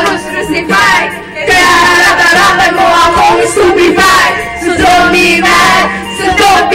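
A woman sings loudly into a handheld karaoke microphone over a backing track, with other voices singing along.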